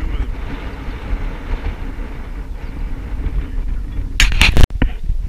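Wind buffeting an action camera's microphone: a steady low rumble. About four seconds in comes a loud, scraping rustle close to the microphone, which cuts off abruptly.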